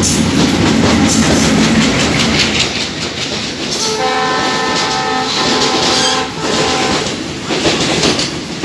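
Freight train of covered wagons passing at speed, its wheels clattering rhythmically over the rail joints. A locomotive horn sounds a chord of several tones for about two seconds, starting about four seconds in.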